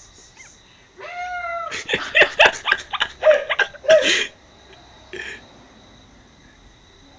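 Cats yowling at each other: one long, wavering yowl about a second in, then a loud, rapid run of sharp spitting and screeching bursts for about two and a half seconds, and one short burst a little later.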